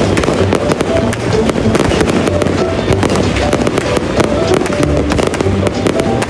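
Fireworks going off in a dense, continuous barrage of sharp crackling pops and low booms, many bangs a second, with music playing along.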